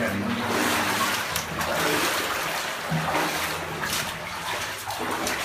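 Water splashing and trickling.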